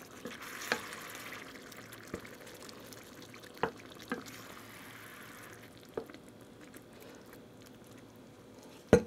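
Wooden spoon stirring chunky tomato sauce and meatballs in an enameled cast-iron skillet: soft scraping with a few light knocks of the spoon against the pan, the sharpest just before the end, over a faint sizzle from the hot pan.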